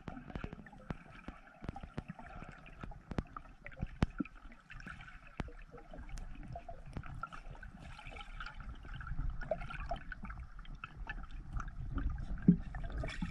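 Underwater ambience picked up by a submerged camera: scattered sharp clicks and crackles over a low rush of water, with a deeper rumble swelling in the second half.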